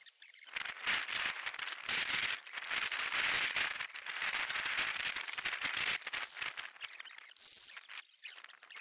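A small group of people applauding: dense, irregular clapping that builds about half a second in and dies down after about six seconds.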